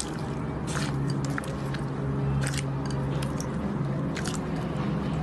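Slime being squished and pressed by hand, with scattered small crackling pops, over a steady low hum.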